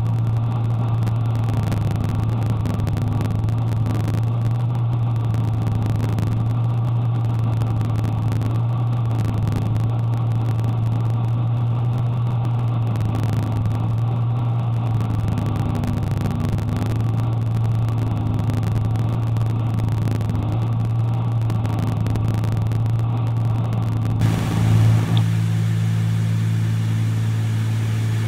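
Cessna 310Q's twin piston engines and propellers droning steadily in cruise, heard inside the cockpit, the low hum swelling and fading slowly. About three-quarters of the way through, the sound changes abruptly and a second, higher steady tone joins the drone.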